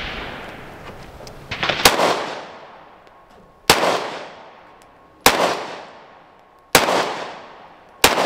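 Glock 43X 9mm pistol firing five aimed shots, about one and a half seconds apart, each trailing off in a long echo.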